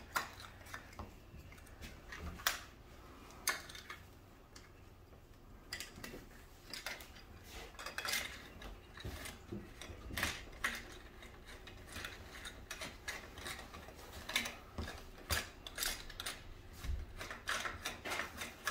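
Parts of a Hoover backpack vacuum's wand being handled and screwed together: scattered clicks and knocks as the ring fitting is refitted and tightened down, with a quieter pause a few seconds in.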